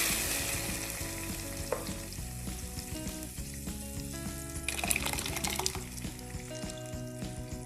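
Ground tomato paste sizzling in hot oil over spluttered mustard seeds, the frying fading as the paste settles. The pan is stirred, with a fresh burst of sizzle about five seconds in.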